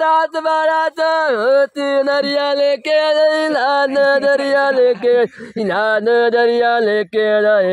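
A man singing loudly in a single strained voice. He holds long notes that bend and waver in pitch, with short breaks for breath between phrases.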